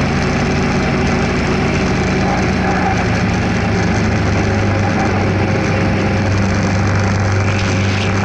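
Kawasaki EN500 Vulcan's parallel-twin engine running steadily under way, with wind rushing over the microphone. The engine note drops lower about three seconds in.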